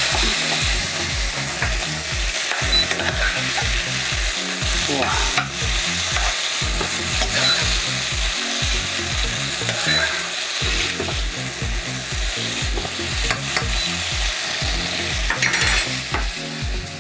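Food frying in a hot pan, a steady sizzle.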